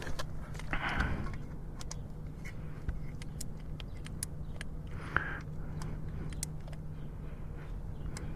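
Small metal tools and bolts clicking and scraping irregularly while the oil filter cover is bolted back onto a motorcycle engine, over a steady low hum.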